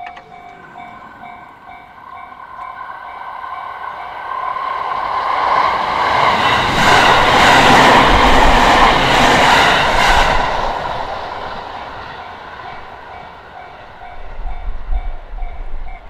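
Japanese level-crossing warning bell ringing in steady repeated dings while a JR Kawagoe Line electric commuter train approaches, passes close by with its wheels clattering over the rail joints, and fades away. The train is loudest about halfway through, and the bell keeps ringing after it has gone by. There is some low rumbling near the end.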